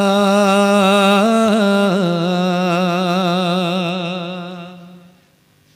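A man singing a Bengali Islamic gazal, holding one long note with vibrato at the end of a line, with no instruments. The note steps down slightly in pitch about two seconds in and fades away over the last second or so.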